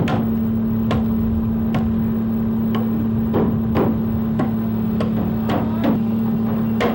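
Repeated blows of a hand tool into a log, one sharp strike every half second to a second. A steady low hum runs beneath.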